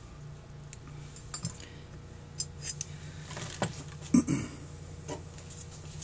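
A few light metallic clicks and clinks of small parts and a screwdriver being handled on a Holley 2280 carburetor body, the loudest a sharp clink a little after four seconds in, over a faint steady low hum.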